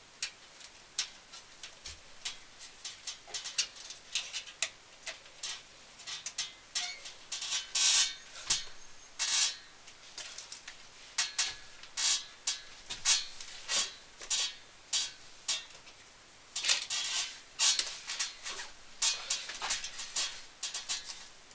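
Cables and twist ties being handled and tied up inside a PC case: an irregular run of short rustles, scrapes and plastic ticks, busiest in the second half.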